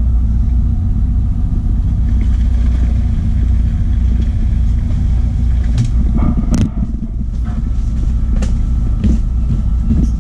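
Fishing boat's engine running steadily, a deep, even rumble heard from inside the wheelhouse. A few sharp clicks and knocks come between about six and nine seconds in.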